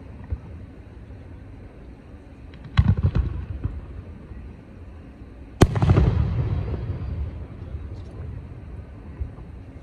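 Aerial fireworks shells bursting: a quick cluster of bangs about three seconds in, then one loud, sharp boom a little past halfway that rumbles and echoes away over a second or so.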